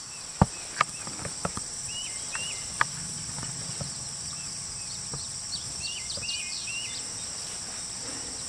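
Insects droning steadily at a high pitch in a grass field, with a few sharp clicks in the first three seconds and a bird's short chirps now and then.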